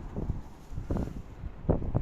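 Wind buffeting the microphone in irregular gusts, a low rumbling noise that rises and falls.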